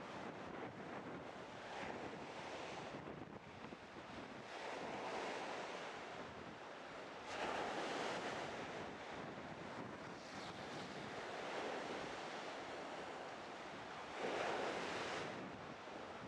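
Wind gusting over the microphone and waves slapping on choppy open water, the noise swelling louder every few seconds with the gusts.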